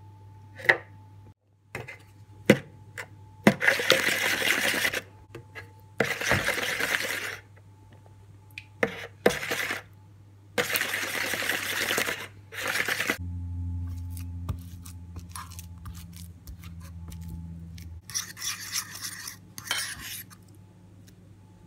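Wooden spoon stirring and scraping a butter-and-sugar mixture in a plastic mixing bowl, in several bursts of a second or two with scattered clicks and knocks; near the end a fork mashes banana against a bowl. A low hum runs for about five seconds in the middle.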